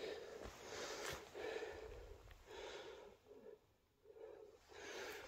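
A man breathing hard in a quick run of short breaths, out of breath, with a brief pause a little past the middle.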